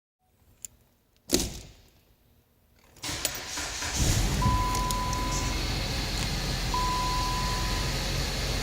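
A click and a sharp thump, then a 2013 Chrysler 200's 2.4-litre four-cylinder engine starts about three seconds in and settles into a steady idle. Two long beeps at one pitch sound over the idle.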